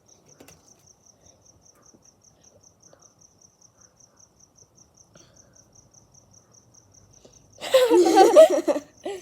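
A cricket chirping in a steady, high pulse of about six chirps a second. About seven and a half seconds in, a loud burst of laughter drowns it out.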